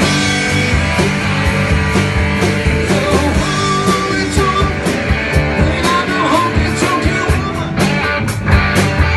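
Guitar-led rock music with a steady beat, loud and continuous, with bending lead notes in the middle.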